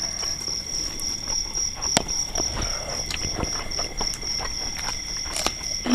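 Insects trilling steadily in a high, even tone, with close-miked chewing and mouth clicks from people eating; the sharpest click comes about two seconds in, and a few more come near the end.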